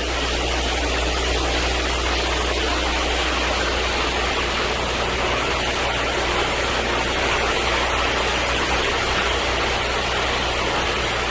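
Greenhouse ventilation fan running: a steady rushing noise over a low, constant hum.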